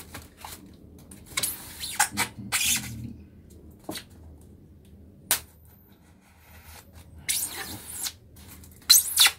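Kitchen knife slitting packing tape on a polystyrene-foam shipping box, then hands working the foam lid loose: a series of short scraping rustles, with a sharp click about five seconds in and the loudest scrape near the end.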